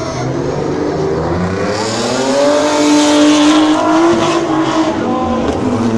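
Rear-wheel-drive competition car's engine revving hard under acceleration, rising in pitch and loudness to a peak about halfway, then dropping in pitch as it falls away.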